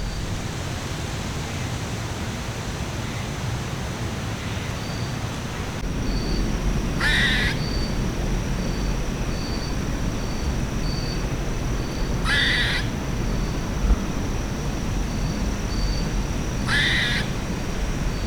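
Crow cawing three times, single harsh caws about five seconds apart.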